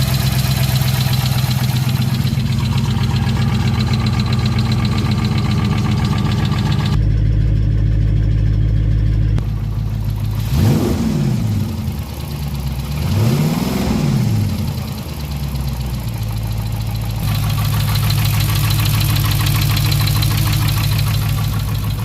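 Dodge Charger 6.4-litre HEMI V8 running with a knocking noise, which the inspector places at the front of the engine under the valve cover, maybe cylinder 2. Near the middle the engine is briefly revved twice, its pitch rising and falling each time.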